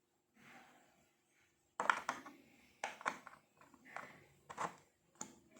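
Handling noises: a series of short knocks and clicks against a hard surface, about five clusters starting about two seconds in, after a near-silent start.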